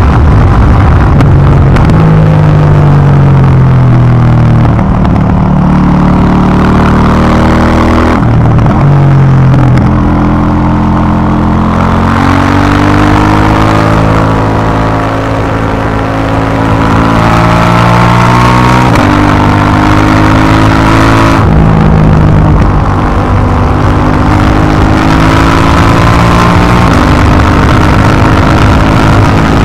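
2018 KTM 790 Duke's parallel-twin engine through its stock exhaust, heard onboard while riding: the engine note climbs under acceleration and sinks off the throttle, with several abrupt jumps in pitch at gear changes.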